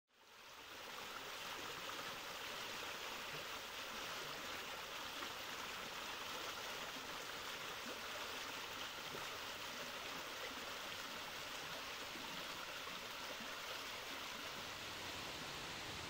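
Mototaki Fukuryusui, a low, wide spring-fed waterfall, flowing steadily as many small streams pour through gaps in mossy rock: an even rush of water that fades in over the first second.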